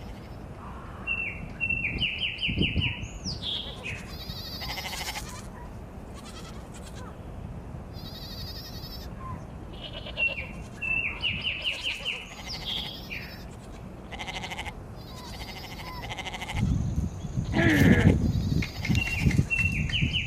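Sheep bleating in three bouts of high, quavering calls spread several seconds apart. A louder low rumble with a sharp click comes shortly before the last bleat.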